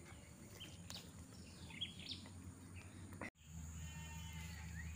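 Quiet outdoor ambience with a few faint, short bird chirps. About three seconds in, the sound cuts out abruptly and gives way to a steady low hum with a brief faint trill.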